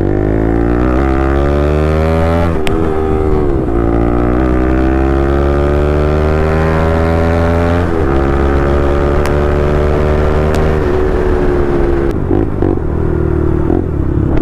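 Bajaj Pulsar NS200's single-cylinder engine, through an aftermarket Akrapovic exhaust, pulling through the gears on the move. Its pitch climbs and drops at upshifts about two and a half and eight seconds in, then holds steadier and dips as the throttle eases near the end.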